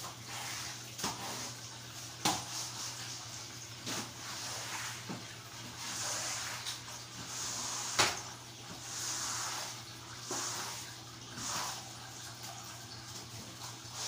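Broom strokes swishing across a tiled floor, coming about every second or so in the second half, with two sharp knocks about two and eight seconds in, over a steady low hum.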